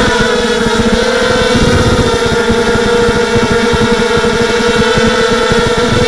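Tarot Robocat 280 quadcopter's motors and propellers whining at a steady pitch in low flight, heard from its own onboard camera, over a rough low rumble.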